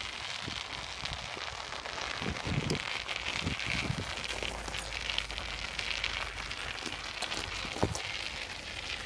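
Bicycle tyres crunching and crackling as they roll over ice and crusted snow, with a few low thumps, the loudest near the end.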